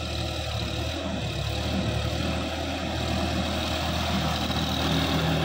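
Sonalika DI 50 RX tractor's diesel engine running steadily while it works through a flooded, muddy paddy field. It grows a little louder as it comes closer.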